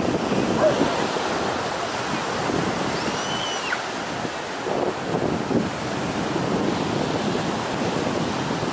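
Steady rush of ocean surf washing onto a sandy beach.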